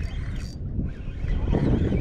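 Wind buffeting the microphone as a low, uneven rumble, with a few faint clicks about half a second in.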